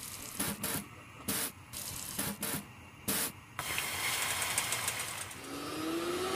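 Plastic seasoning sachet crinkling in the hand in short, irregular crackles, then a steady hiss from the soup pot boiling on a gas burner. A faint tone rising in pitch comes in near the end.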